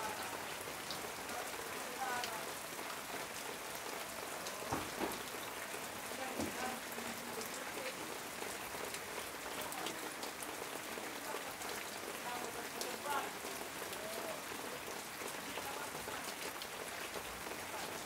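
Steady rain falling on corrugated metal roofing: a continuous hiss with many scattered sharper drop ticks, and a couple of louder knocks about five seconds in.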